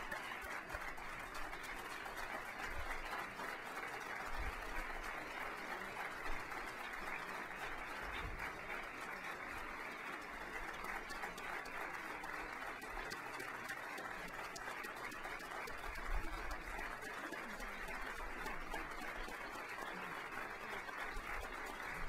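Audience applauding steadily, a sustained crowd ovation.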